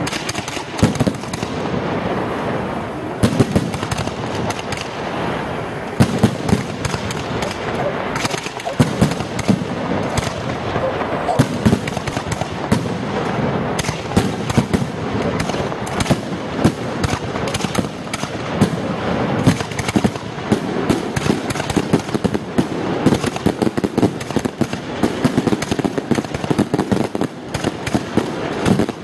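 Aerial fireworks display: shells bursting and crackling in rapid succession, a dense unbroken run of bangs.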